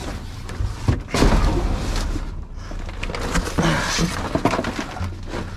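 Trash being rummaged through in a dumpster: irregular knocks, thuds and scraping of items being moved, with a sharper knock about a second in.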